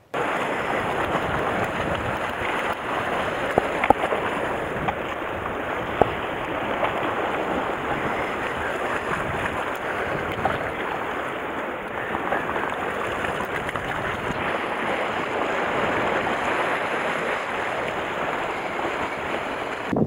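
Steady rushing of sea surf against the rocks and wind on the microphone, with a few faint clicks.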